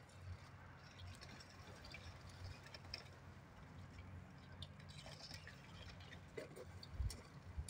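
Faint rustling and light scattered ticks of long cut succulent leaves being handled and gathered up from a pile, over a low steady hum.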